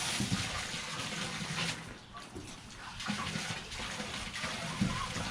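Water from a garden hose pouring into a bucket, a steady stream that weakens for a moment about two seconds in and then runs on.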